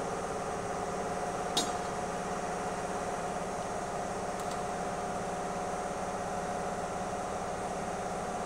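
A steady mechanical hum, with one sharp metallic tick about a second and a half in.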